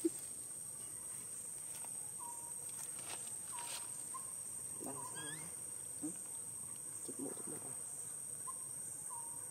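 Steady high-pitched drone of insects, with a few short, faint chirps scattered through.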